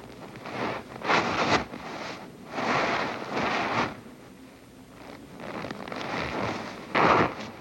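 Scraping and rustling on snow in several irregular bursts, the sharpest one near the end.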